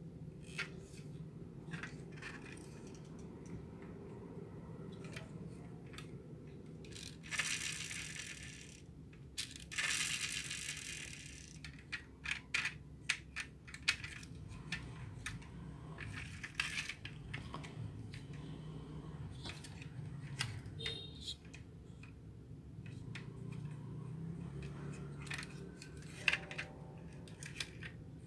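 Small die-cast toy police pickup truck being handled: a string of light metal-and-plastic clicks and rattles as its doors and parts are worked, with two longer rasping noises about seven and ten seconds in.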